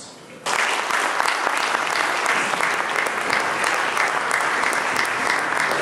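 Audience applauding, starting suddenly about half a second in and going on as a steady, dense clapping.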